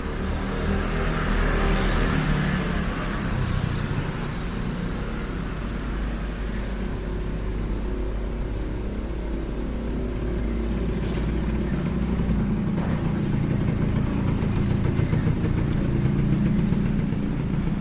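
Street traffic: cars and motor scooters going past with steady engine hum and road noise. A louder vehicle swells past about one to three seconds in, and another comes through near the end.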